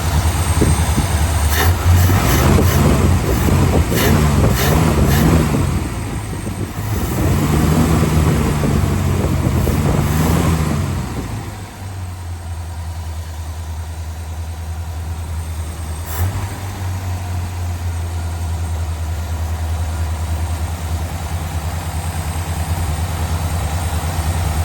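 A 1955 Ford Thunderbird's V8 engine being revved up and down several times for about ten seconds, then dropping back to a steady idle for the rest of the stretch.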